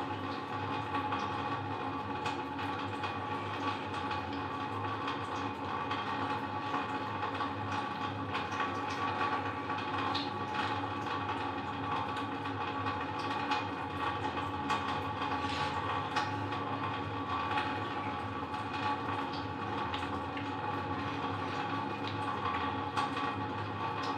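A steady machine-like drone made of several held tones over an even hiss, with faint clicks scattered through it.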